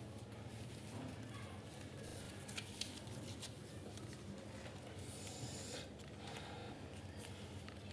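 Soft clicks and rustles of Jass playing cards being handled and laid down on a table, over a low steady room hum.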